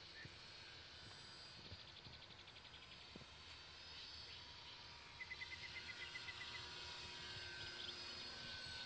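Faint, steady whine of an electric RC model plane's motor and propellers flying far overhead. A short run of rapid high chirps comes about five seconds in.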